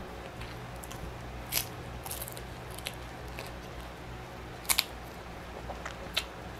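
Crisp pork chicharon (fried pork rind) crunching as it is broken and eaten: a handful of sharp cracks, the loudest pair about two-thirds of the way in. A low steady hum runs underneath.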